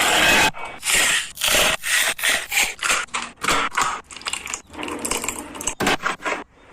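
A cooking spoon scraping and stirring in a pot of mutton curry in quick, uneven strokes, about two a second, thinning out and quieter near the end.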